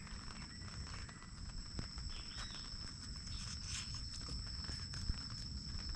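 Insects droning steadily on two high tones, with scattered light clicks and rustles over a low background rumble.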